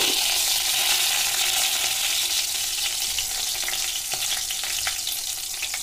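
Whole spices (cumin seeds, dried red chillies and bay leaves) sizzling in hot oil in a kadhai during the tempering (tadka): a steady frying hiss with a few small crackles, easing off a little toward the end.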